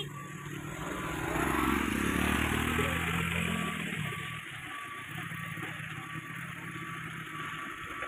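Mitsubishi Fuso Canter dump truck's diesel engine revving hard under load as the truck climbs a muddy slope, rising in pitch and loudest about a second to three seconds in, then pulling on more steadily.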